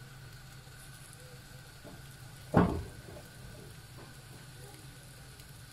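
Potato-and-egg omelette sizzling faintly in a frying pan, under a low steady hum. There is one short knock about two and a half seconds in.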